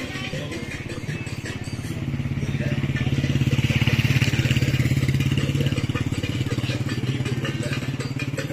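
A motorcycle passing along the street, its engine getting louder to a peak about four seconds in and then fading away.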